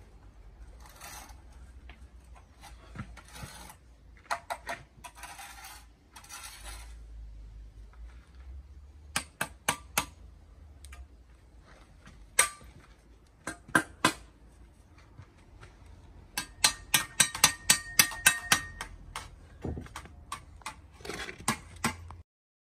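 Steel brick trowel scraping wet mortar, and concrete blocks being tapped down into the mortar bed to level. The taps are sharp knocks, scattered at first, then a quick run of them about two-thirds of the way through, with a faint metallic ring.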